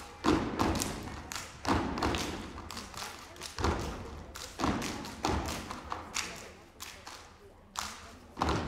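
A step team stepping in unison on a stage floor: heavy stomps landing together roughly once a second, each with a short echo in the hall.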